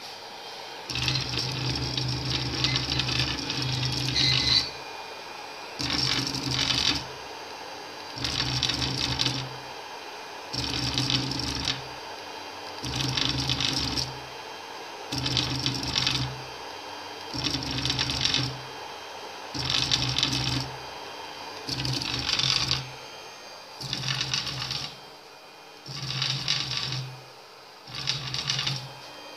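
Anet E16 3D printer's stepper motors buzzing and whining through repeated moves of the print head and bed: a longer run of about three seconds at the start, then about one move every two seconds with short pauses between. The printer is running a faulty print that strays outside the hotbed, which the owner puts down to a problem with the machine.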